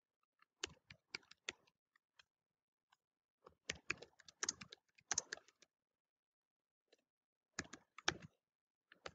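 Computer keyboard being typed in three short bursts of key clicks, with silent pauses between them.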